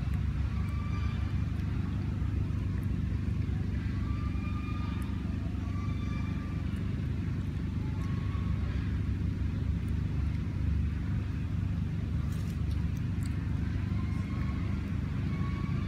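Steady low outdoor rumble, with faint short high-pitched calls recurring every second or two over it.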